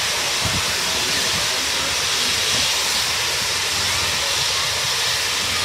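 Steam locomotive 3801, a New South Wales C38 class Pacific, giving off a steady hiss of escaping steam.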